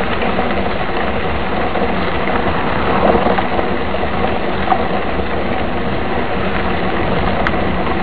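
Mountain bike rolling along a gravel road: steady rushing noise of the tyres on loose gravel and wind on the bike-mounted camera's microphone.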